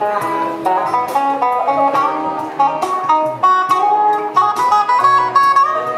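Music led by a plucked acoustic guitar, picking a melody of quick, stepping notes.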